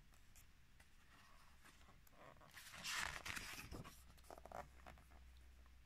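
Paper pages of a picture book being turned: a soft papery swish about three seconds in, with a smaller rustle a little later.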